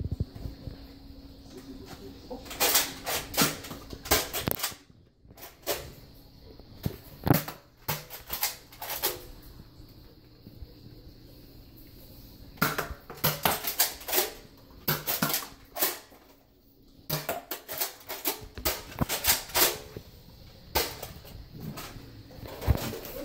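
Toy foam-dart blasters being primed and fired: sharp clicks and snaps in irregular clusters, with quieter stretches between them.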